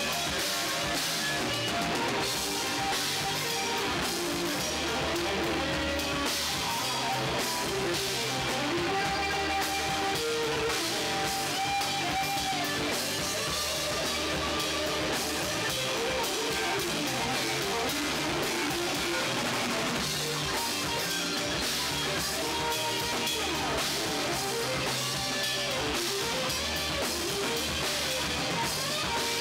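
Rock band playing live: electric guitar over bass guitar and drum kit.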